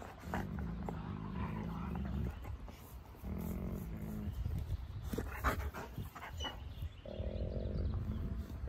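Wolf dog giving a light, low growl in three spells of one to two seconds each, with a few sharp clicks in the middle.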